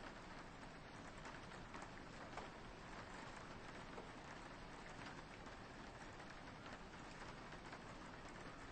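Soft rain falling on a window: a faint, steady hiss with scattered small drop ticks.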